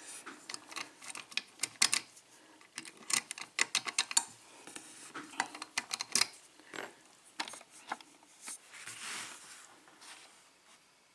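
Irregular metal clicks and clatter as a Schlage 5-pin lock is handled and clamped into a bench vise, with a short rustle near the end.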